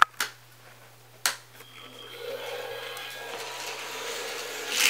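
Plastic Hot Wheels toy track pieces clicking sharply a few times as they are handled, then a steady noise that grows louder from about two seconds in.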